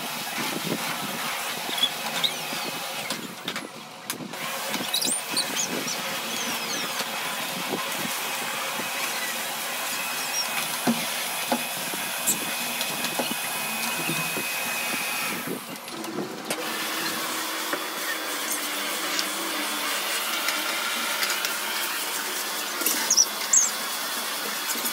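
Stick vacuum cleaner running steadily over a rug, with scattered small clicks and knocks, and a brief dip twice where the sound cuts.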